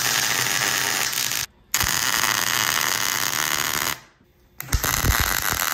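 MIG welder arc crackling as tack welds are burned onto a steel plate: three bursts of steady crackle with sharp starts and stops. The first lasts about a second and a half and the second about two seconds. The third begins about a second before the end, with a few low knocks as it starts.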